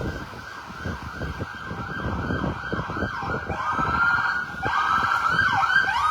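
Emergency vehicle siren coming in about halfway through as a rising wail, then switching to quicker up-and-down sweeps near the end, over street noise with scattered knocks.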